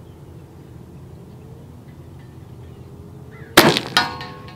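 A .457-calibre big-bore air pistol fires a round ball once, a sharp report about three and a half seconds in. About half a second later comes the clang of the ball striking a steel target, which rings briefly.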